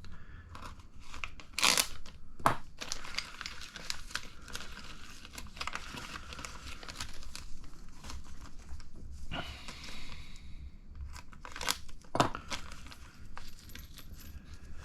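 Plastic kit parts bag rustling as it is handled, with a few sharp clicks and taps of small plastic parts being picked up and set down.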